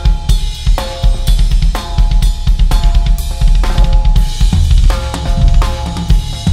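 Drum kit played solo: fast bass-drum strokes under snare and tom hits, with Paiste cymbal crashes ringing on after the accents. About two-thirds through comes a fill on the lower toms.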